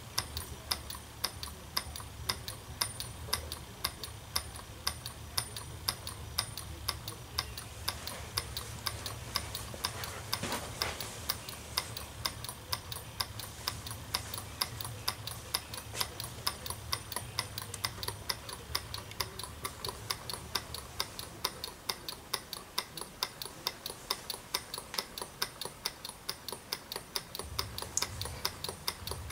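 Small solar Stirling engine running on heat from boiling water beneath it. It ticks in a steady, even rhythm of about two ticks a second as its flywheel turns.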